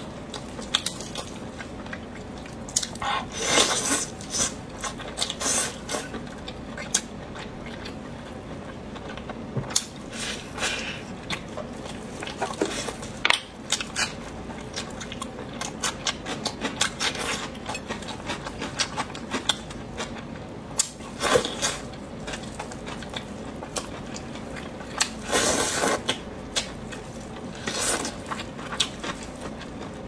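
A person eating close to the microphone: chewing and biting, with irregular sharp clicks and clinks of cutlery against dishes.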